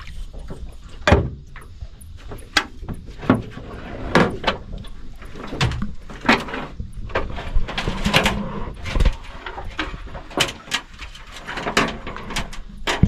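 A series of irregular sharp knocks and bumps, about a dozen, with rustling and scraping between them: handling noise while rigging fishing lines.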